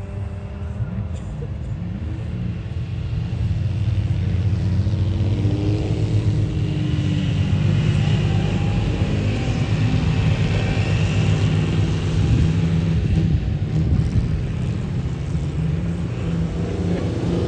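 Classic car engines driving past on a snow track, getting louder over the first few seconds as the cars come close, with the engine pitch rising and falling as they are revved.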